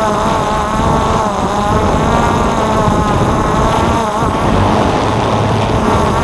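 DJI F550 hexacopter's motors and propellers buzzing in flight, the pitch shifting as the motor speeds change, with low wind rumble on the microphone.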